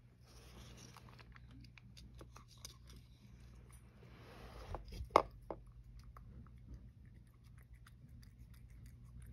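Domestic cat eating from a small bowl: faint chewing and licking with many small clicks, and one sharp knock about five seconds in.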